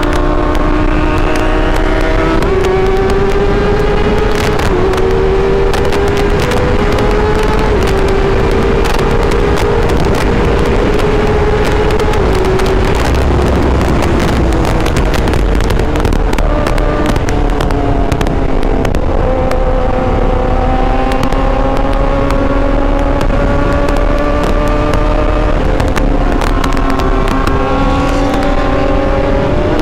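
Kawasaki Ninja ZX-10R's inline-four engine with an SC Project exhaust, running hard at high speed, over 200 km/h. Its note climbs over the first dozen seconds, falls back, then climbs again near the end. Heavy wind rush and buffeting crackle over the microphone throughout.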